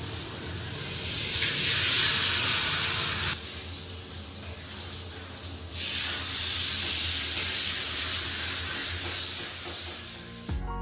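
Hot water running from a bath tap into a filling bathtub: a steady rushing hiss that jumps abruptly louder or softer a few times.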